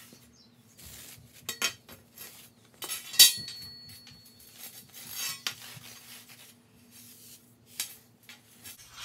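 Perforated steel strut channel being wiped down with a dry cloth: rubbing and scraping along the metal, with scattered metallic clinks as the bars are handled. About three seconds in there is one sharp clank that rings briefly.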